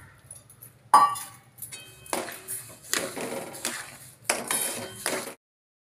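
A steel spoon clanking and scraping against a steel kadhai while stirring sugar into thick mango pulp, with one sharp ringing clank about a second in and several shorter knocks and scrapes after it. The sound cuts off suddenly near the end.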